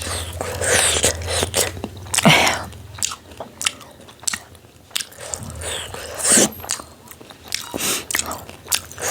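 Close-miked mukbang eating: wet chewing and biting of food, with irregular mouth clicks and smacks. The loudest ones come about two seconds in and again about six seconds in.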